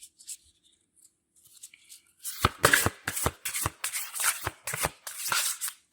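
A deck of tarot cards being shuffled by hand: after a near-silent start, a quick run of card flicks and slaps begins about two seconds in.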